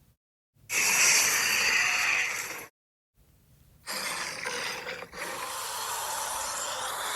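Custom sandworm creature sound effect: a harsh, noisy call with no clear pitch lasting about two seconds, then after a brief silence a longer one starting about four seconds in, with a gritty, grinding texture.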